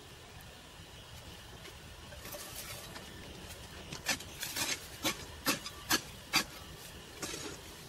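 Hoe blade scraping through a heap of soil, cow manure and dolomite lime while mixing it. The scrapes are soft at first, then about six short sharp strokes come in quick succession, roughly two a second, in the second half.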